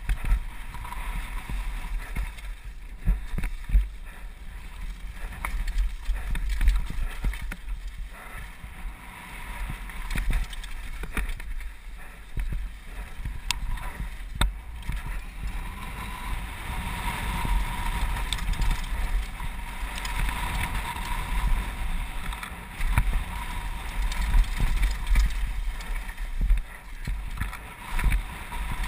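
Mountain bike rolling fast down a dirt and gravel trail, with tyre crunch and many sharp knocks and rattles from the bike over bumps. Heavy low rumble from wind buffeting the helmet camera's microphone.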